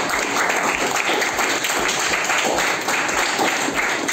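A class of schoolchildren and their teacher applauding: dense, steady hand-clapping that stays at an even level throughout.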